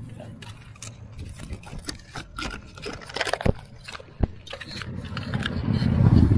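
Motorcycle engine running as a cruiser motorcycle comes up alongside and passes close by, growing louder to its peak near the end, over the rumble of the bicycle riding on the street. Two sharp knocks sound in the middle.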